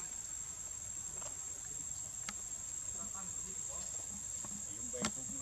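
Insects droning, one steady high-pitched tone that does not let up. Two short sharp clicks break through, the louder one near the end.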